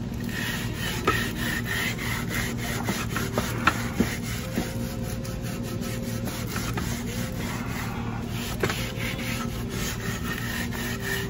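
Rapid rubbing and scraping strokes, several a second, with a few sharper ticks, over a steady low hum.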